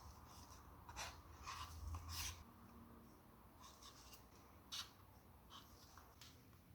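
Near silence with a few faint clicks and soft rubbing as acrylic paints are layered into a plastic cup for a dirty pour.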